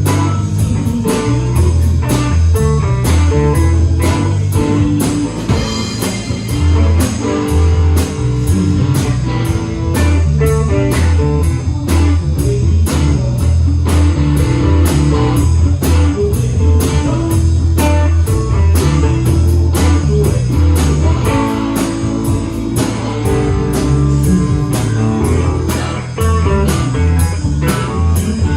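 A rock band playing an instrumental blues-rock passage: electric guitar over a bass guitar, with a drum kit keeping a steady beat.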